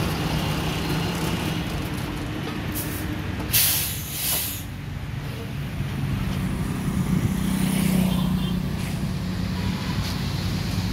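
City bus engine running steadily while a bus is parked, with a sharp hiss of air brakes about three and a half seconds in. The low engine note swells around two-thirds of the way through.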